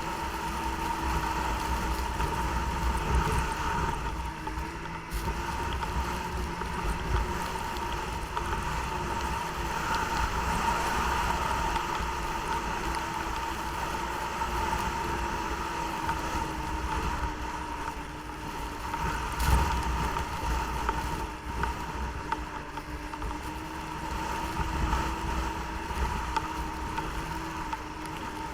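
Snowmobile engine running at a steady, even speed while riding, with its drone holding nearly constant pitch and wind buffeting the microphone. One sharp jolt about two-thirds of the way through, typical of the sled hitting a bump.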